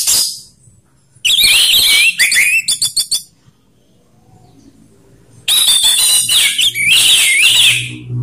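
Orange-headed thrush (anis merah) singing loud full song in two phrases, about a second in and again about five and a half seconds in. Its warbling notes slide up and down, and the first phrase ends in a run of rapid clipped notes. A short sharp note sounds at the very start.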